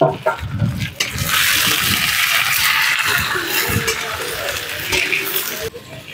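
Raw mutton sizzling in hot oil and fried onions in a kadhai as a steel ladle stirs it. The loud sizzle starts suddenly about a second in and cuts off abruptly near the end.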